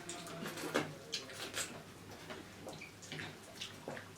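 Eating sounds: scattered soft wet smacks and light clicks, several a second, from people eating maize-grit rice with nettle curry.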